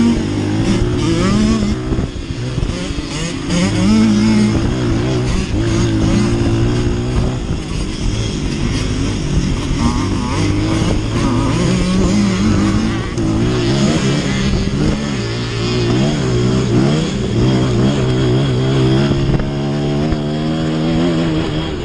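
Small dirt bike's engine revving hard under the rider, its pitch climbing and dropping again and again as the throttle opens and closes during racing.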